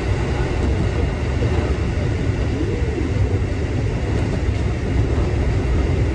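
Kotoden Kotohira Line electric train running, a steady low rumble heard from inside the carriage.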